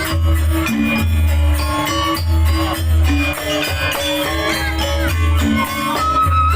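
Opening music for a Banyuwangi janger show, played loud through a sound system. Heavy bass pulses about once a second sit under melodic pitched instruments and sharp percussion strokes.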